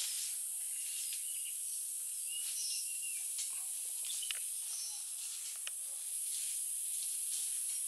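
Outdoor woodland ambience: a steady high-pitched drone of insects, with short bird chirps and warbles coming and going and a few light clicks.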